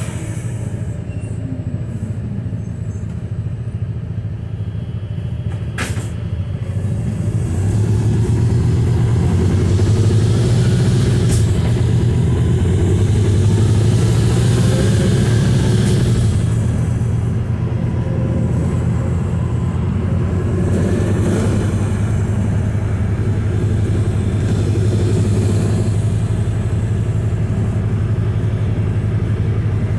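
Volvo B215RH hybrid city bus heard from inside the passenger cabin while driving: a steady low drone of the drivetrain with road noise, which grows louder about eight seconds in. A single sharp click sounds about six seconds in.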